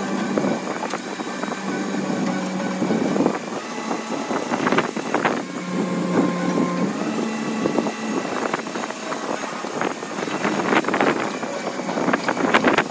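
An engine running, with several sharp knocks and clanks over it.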